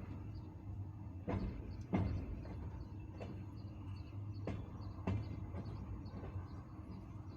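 Passenger train wheels clacking over rail joints on jointed track: the classic double knock as each pair of wheelsets crosses a joint, heard twice about three seconds apart over a steady low rumble of the moving car.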